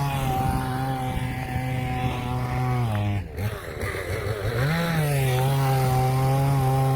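Two-stroke chainsaw engine running at a steady mid speed. It drops off about three seconds in, then revs back up and holds steady again.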